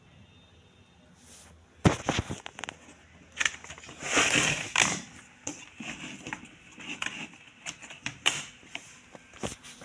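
Handling noise around a laptop on a bench: a string of sharp clicks and knocks with bursts of rustling, the loudest a sharp knock about two seconds in.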